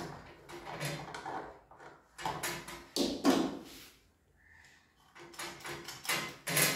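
Small metal ceiling-fan parts clinking and scraping as a washer and nut are fitted and tightened by hand on the fan's rod, in two bursts of short clacks with a pause between.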